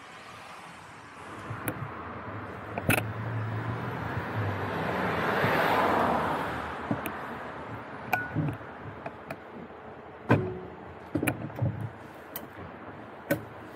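A car passing on the street: its tyre and engine noise swells to a peak about halfway through and then fades. Scattered sharp clicks and knocks close to the microphone come from the camera and its mount being handled.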